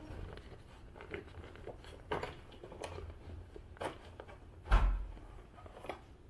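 A full paper dust bag being handled and pulled out of an upright vacuum's bag compartment: scattered rustling and light knocks, with one louder thump about five seconds in.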